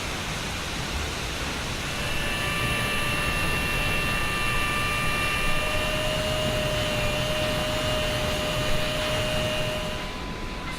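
Car assembly plant machinery: a steady roar of factory noise. From about two seconds in until near the end, a high machine whine of several steady tones rides on top.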